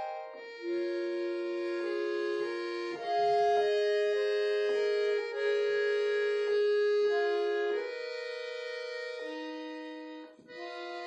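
Solo piano accordion playing held notes and chords that change every second or so, with a brief break near the end before the playing resumes.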